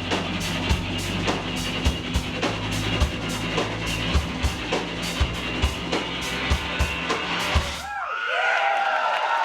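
Live rock band playing without vocals over a steady drum-kit beat, with a kick or snare hit roughly every half second, ending abruptly about eight seconds in. The audience then cheers and whistles.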